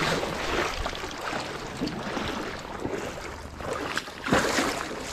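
Shallow stream water splashing and sloshing as a gloved arm works in it, with a louder splash near the end.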